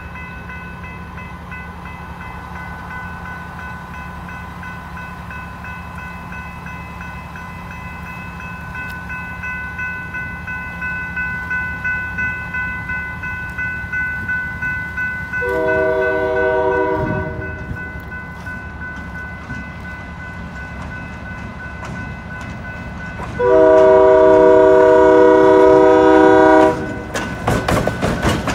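Railroad crossing warning bell ringing steadily as a diesel locomotive approaches. The locomotive sounds its multi-note air horn twice, a short blast about halfway through and a louder blast of about three seconds near the end, then passes over the crossing with a run of sharp wheel clicks.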